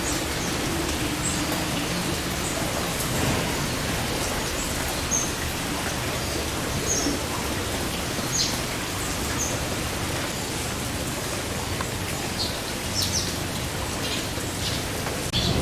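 Heavy rain falling steadily, with short high bird chirps scattered over it.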